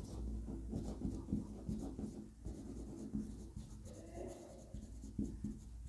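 Handwriting: a writing tool scratching in many short, faint, irregular strokes.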